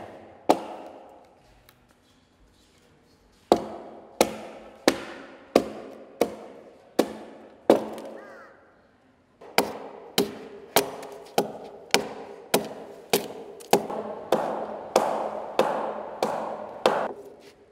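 Hand axe chopping into the edge of a thick wooden boat plank, trimming it down, with chips splitting off. One blow, a pause, then a run of steady chops about every 0.7 seconds. After a short break comes a faster run of about two chops a second.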